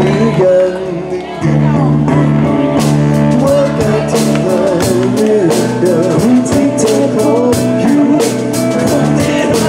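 Live rock band playing with a vocal line: electric guitar, drum kit and singing. The drums and cymbals come to the fore about three seconds in.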